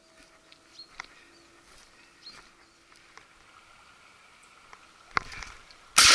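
Quiet open-field background with faint rustles, small clicks and a few short high bird chirps. About five seconds in comes a brief patch of rustling. Right at the end there is a single loud shotgun shot from an SKB 505 over-and-under, ringing on afterward.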